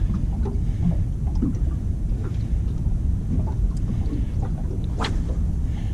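Steady low rumble of light wind on the microphone, with scattered faint ticks and one sharper click about five seconds in.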